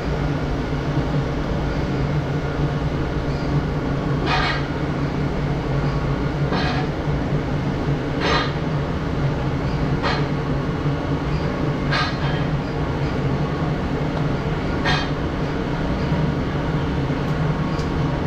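A steady low mechanical hum, with a short high-pitched sound six times, about every two seconds.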